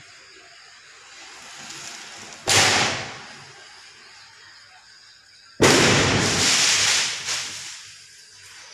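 Diwali firecrackers going off: one sudden bang about two and a half seconds in that dies away quickly, then a second, longer burst from about five and a half seconds, crackling for over a second before fading.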